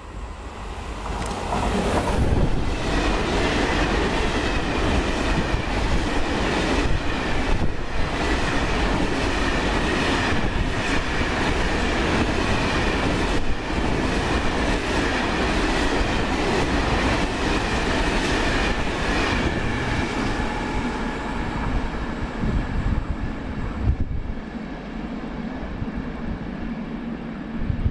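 Sistemi Territoriali E483 electric locomotive hauling a train of hopper wagons, passing close by: a dense steady rumble of wagons and wheels clicking over the rail joints, with a thin high tone above it. It builds up over the first two seconds as the locomotive arrives, and falls away a few seconds before the end as the last wagon goes by.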